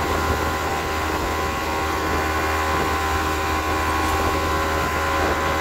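Boat motor running steadily at speed with a deep, even hum, over water rushing and spraying along the hull.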